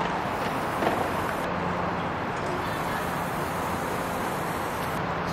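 Steady downtown city ambience: a constant hum of road traffic with no distinct event standing out.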